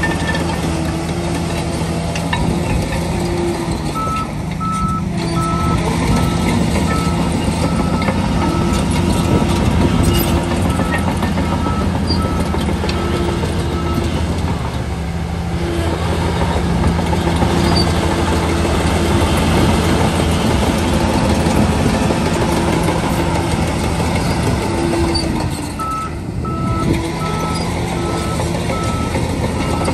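Shantui DH17C3 bulldozer's diesel engine working under changing load. A reversing alarm beeps steadily from about four seconds in for some ten seconds, then again near the end.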